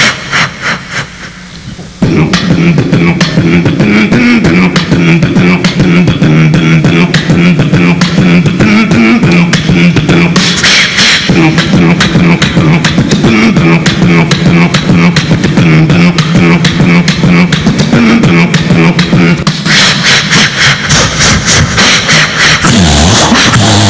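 Human beatboxing into a handheld microphone: rapid mouth-made kick, snare and hi-hat clicks, joined about two seconds in by a low pitched bass tone held under the beat.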